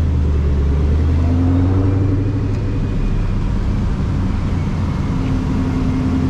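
Ford Mustang driving at a steady speed: a steady low engine drone mixed with road noise.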